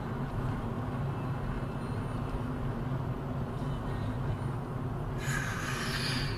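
Steady drone of a car driving at speed, heard from inside the cabin: engine and tyre road noise. About five seconds in, a burst of hiss starts and runs until the end.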